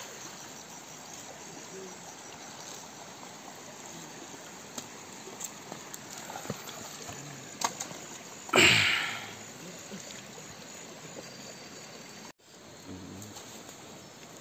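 Stream water running steadily over rocks. About eight and a half seconds in, a loud sudden noise fades away over about a second, with a few small clicks before it.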